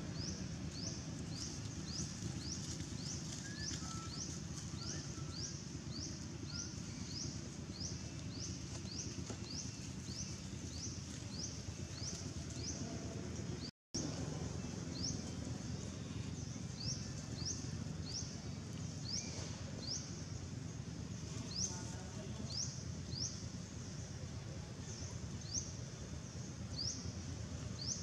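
Outdoor ambience with a high rising chirp repeating steadily, about two to three times a second, over a low even background noise. The sound cuts out for a moment about halfway through.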